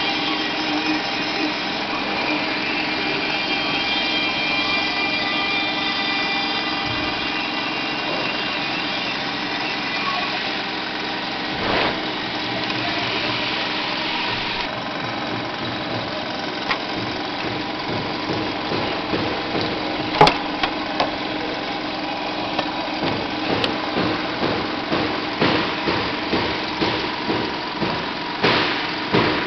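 CNC router used for PCB engraving running with a steady whine of several tones, its highest tones fading out partway through. In the second half a run of irregular clicks and knocks, from handling the board and machine, sits over the machine sound.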